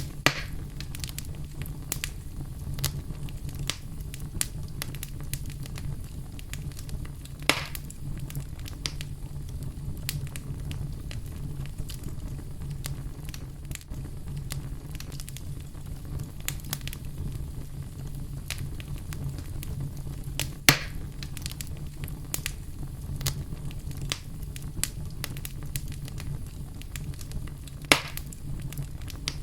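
Wood fire burning in a fireplace: a steady low rumble of flames under constant small crackles, with a few sharper pops, the loudest about two-thirds of the way through.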